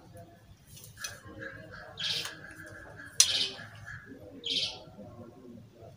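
Small bird chirping in short high calls, twice, with a thin steady tone between them. A single sharp click about three seconds in, amid soft handling noise.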